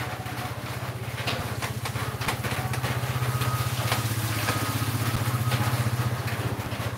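A small motorcycle engine running as it passes by, its steady throbbing hum growing louder past the middle and dropping away near the end.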